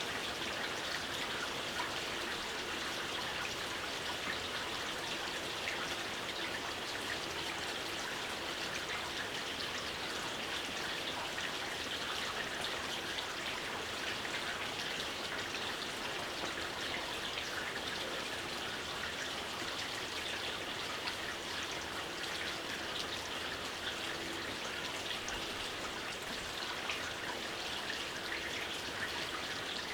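Steady gentle rain falling, an even patter of many small drops.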